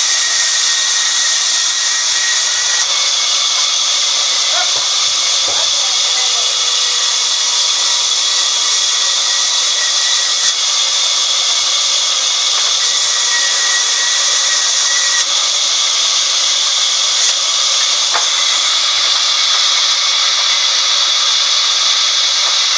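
Large vertical band saw running and ripping a timber plank lengthwise, a steady loud hiss of the blade through the wood.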